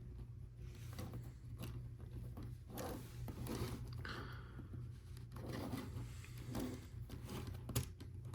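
Plastic Lego Technic pieces being handled and pressed together: scattered small clicks and rubbing, with one sharper click near the end.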